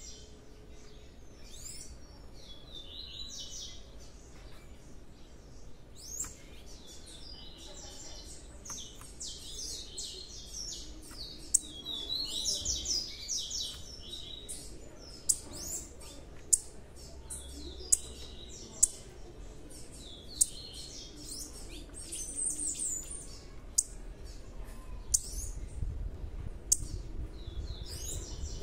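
Young blue-black grassquits chirping, a run of short high calls, with sharp clicks that are louder than the calls scattered through the second half.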